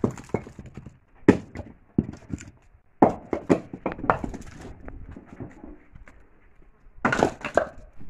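Firewood logs thrown down from a pickup truck's bed, landing on a log pile on concrete in a series of wooden clunks and knocks, with a quick cluster of them near the end.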